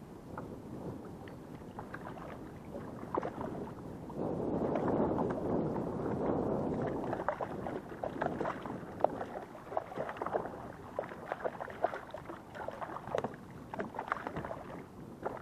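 Water splashing against the side of a kayak as a hooked queenfish thrashes at the surface. Quick, sharp splashes come again and again through the second half.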